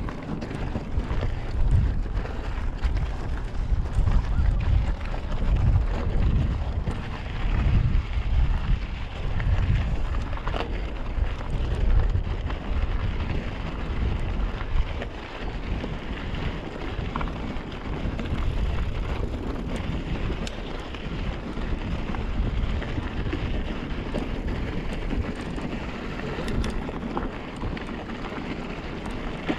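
Mountain bike rolling over a rocky gravel fire road: a steady rumble of tyres on loose stones, with wind buffeting the microphone and occasional sharp clicks from the bike jolting over rocks.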